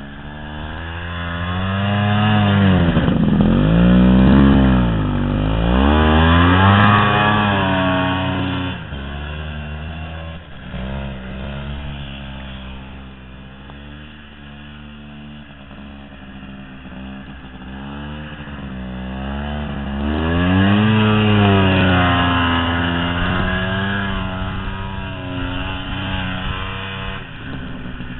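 2006 Ski-Doo Tundra snowmobile running through soft snow, its engine rising and falling in pitch as the rider works the throttle. It is loudest about three to seven seconds in and again about twenty to twenty-three seconds in.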